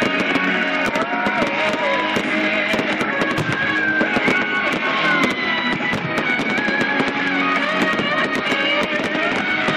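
Guitar-led rock music playing during a fireworks display, with many sharp firework pops and crackles over it.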